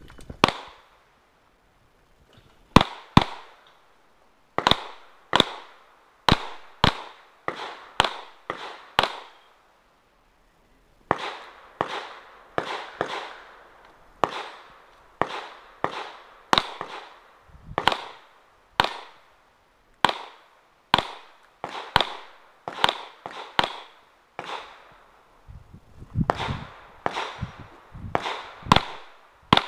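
Pistol shots fired in rapid strings, dozens of single sharp reports about two a second, each with a short echo. Brief pauses break the firing about two seconds in and again around ten seconds in.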